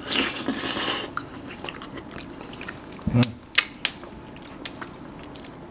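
Close-miked chewing and biting of ice cream, with scattered small wet mouth clicks. There is a short noisy burst at the start and a dull thump about three seconds in.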